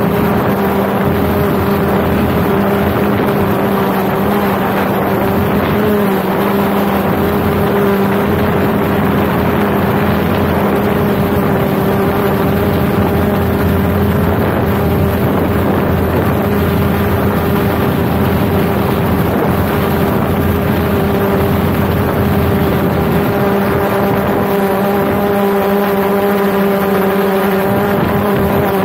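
Autel EVO II quadcopter's propellers and motors holding a steady hover, heard from directly beneath the drone: a loud, even buzzing hum with a steady pitch.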